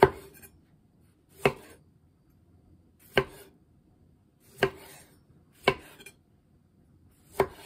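Chef's knife cutting a tomato into wedges on a wooden cutting board: six separate cuts, each ending in a sharp knock of the blade on the wood, about one to one and a half seconds apart.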